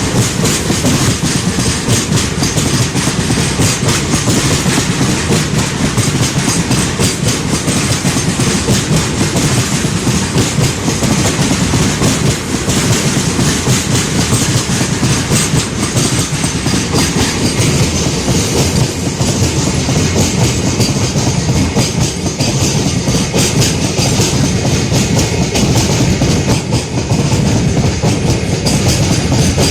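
Freight train of BFNS flat wagons rolling past, with a steady clickety-clack of wheels over the rail joints.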